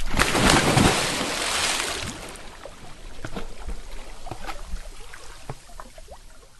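A single water splash: a sudden loud rush of water that dies away over about two seconds into sloshing, with scattered drips and small plops as the water falls back.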